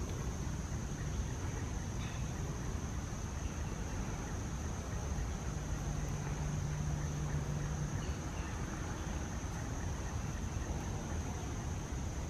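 Steady high-pitched drone of a late-summer insect chorus, over a low background rumble, with a brief low hum a little past the middle.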